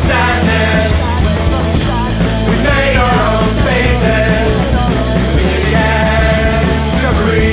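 Punk rock band playing loud and steady through an instrumental stretch of the song, with no vocals.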